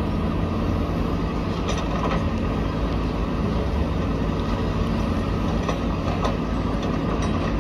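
Diesel engines of backhoe loaders running steadily under digging and loading work, a constant low rumble with a few faint knocks from the buckets and booms.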